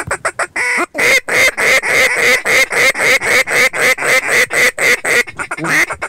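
Mouth-blown Melnik duck call giving a long run of rapid, evenly spaced mallard-style quacks, about four a second, tapering into softer, shorter notes near the end. It is calling to a pair of ducks flying in head-on, to bring them down to the decoys.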